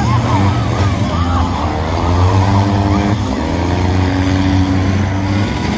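Several race cars' engines running hard together. Their pitch climbs as they accelerate, drops sharply about three seconds in, then climbs again.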